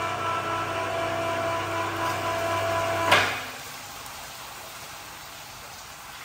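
Electric hoist motor running with a steady hum as it lifts a batch of braised pig heads out of a giant braising pot. It stops about three seconds in with one sharp clunk.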